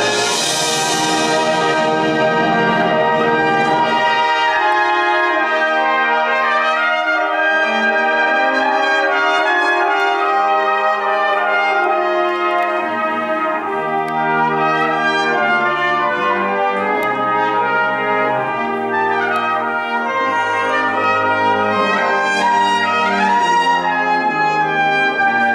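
Salvation Army brass band playing sustained chords and moving lines, with a solo cornet carrying the melody. A bright crash at the very start rings away over about two seconds.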